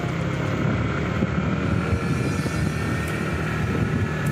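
Steady riding noise of a motorcycle on the move: the engine running evenly along with road and wind noise.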